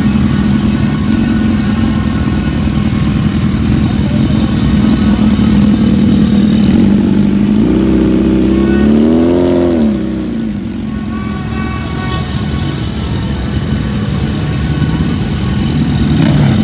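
Motorcycle engines idling in a crowded street, with one bike on an aftermarket slip-on exhaust revving up and dropping back to idle about eight seconds in.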